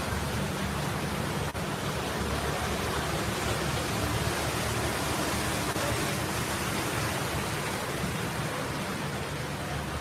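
Steady hiss of heavy rain falling over a flooded street.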